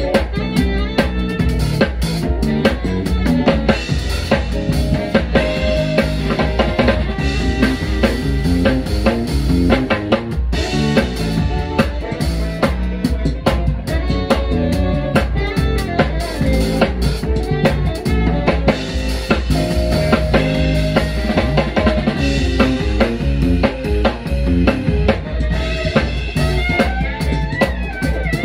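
Live band playing, with the drum kit prominent: kick drum, snare and rimshots driving the groove over electric bass and keyboards.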